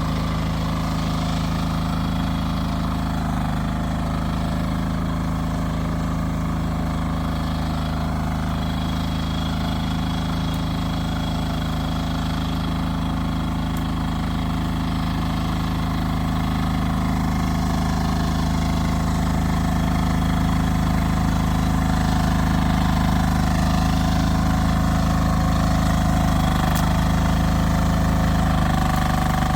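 Rippa R10 mini excavator's engine running steadily under working load, a little louder in the second half.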